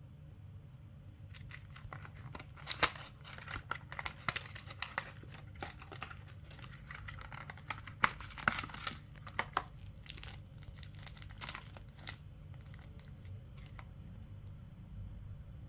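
Packaging being torn open and crinkled by hand: a quick, irregular run of crackles and rips that starts about a second and a half in and stops a couple of seconds before the end.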